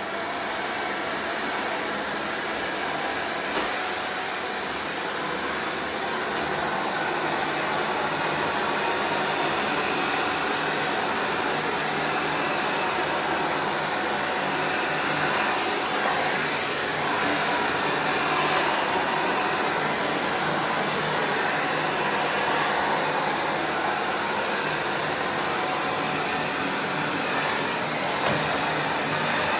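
Miele Boost CX1 bagless canister vacuum cleaner running steadily with a high whine, its floor nozzle sucking sawdust off a tile floor, with a few brief crackles near the middle and end.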